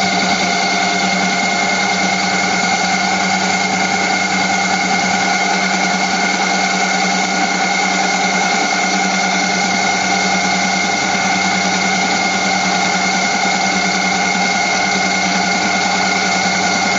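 Milling machine running steadily while cutting a long slot, a constant machine whine of several steady tones over a hiss.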